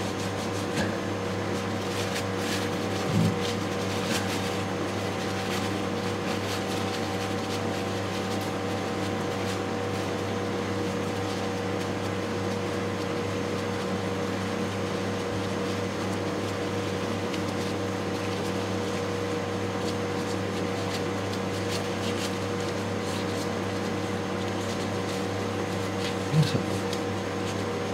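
A steady machine hum holding several fixed tones, unchanging throughout, with a few faint clicks of handling near the start and a brief sound near the end.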